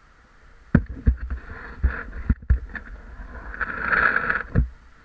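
A person moving through water in a low cave passage: a run of sharp thumps and splashes starting about a second in, building to a louder sloshing rush near the end that stops abruptly.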